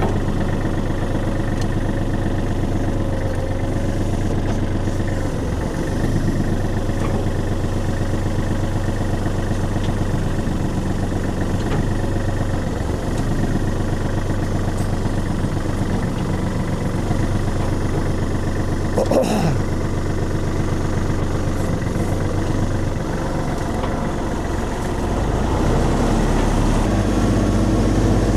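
Tractor diesel engine running steadily while dragging a log, with a brief falling squeal about two-thirds of the way through and the engine getting louder near the end.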